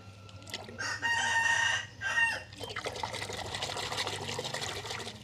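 A rooster crowing: a loud held call about a second in, ending in a shorter falling note. It is followed by a few seconds of steady hissing noise.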